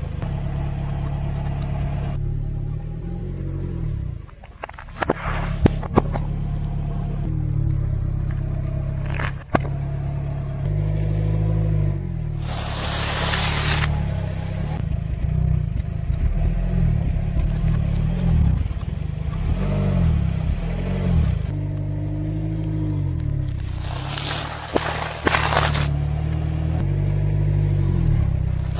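A car's tyre rolls slowly onto objects on asphalt under a steady low rumble of the car, with several short crackling, crunching bursts as brittle things break under it.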